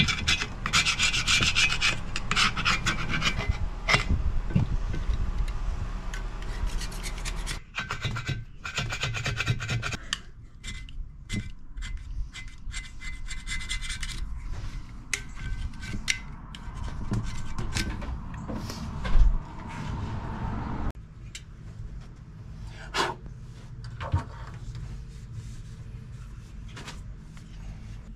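Hand-tool work on metal and plastic parts: steady scraping and rubbing with many clicks for the first ten seconds or so, then sparser clicks and knocks, with one louder knock a little after halfway.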